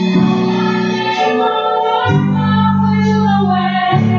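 A live gospel song: several female voices sing together into microphones over keyboard accompaniment. The held low chords change about two seconds in and again near the end.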